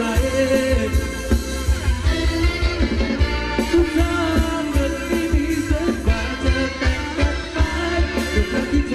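Thai ramwong dance song played by a band, with a steady beat and singing.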